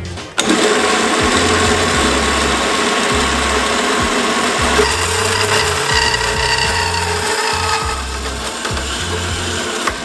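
Horizontal metal-cutting bandsaw running, its blade sawing through a flat metal bar with a steady grinding hiss that starts suddenly just after the start. A higher whine joins about halfway through.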